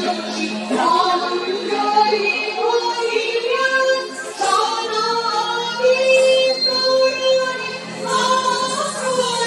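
Music for an Indian classical dance: a woman singing long, gliding melodic lines over instrumental accompaniment.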